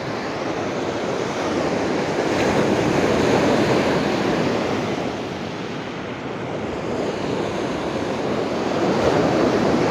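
Sea surf washing onto a beach: a steady rush of waves that swells and falls back twice, mixed with wind on the microphone.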